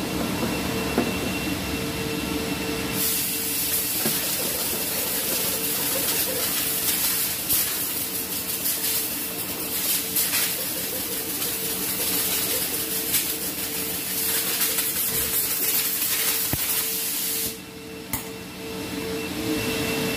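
Compressed-air blowgun hissing as it blows dust out of a car's engine air filter, which is being cleaned rather than replaced. It starts about three seconds in, comes in surges, and stops shortly before the end, with a steady hum underneath.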